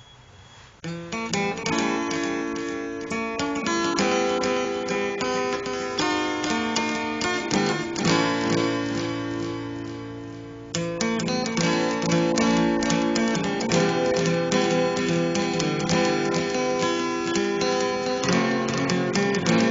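Acoustic guitar music with plucked and strummed chords, starting about a second in, easing off briefly and then coming back in strongly about halfway through.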